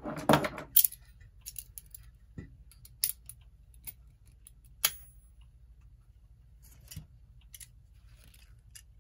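Small metal parts of a 1931 GE Telechron clock movement clicking and tapping as they are handled and fitted during reassembly. A quick cluster of louder clicks comes at the start, then scattered light clicks, with one sharper click about halfway through that rings briefly.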